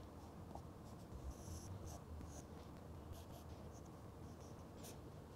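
Faint scratching of a pencil on drawing paper, several short strokes spaced a second or so apart.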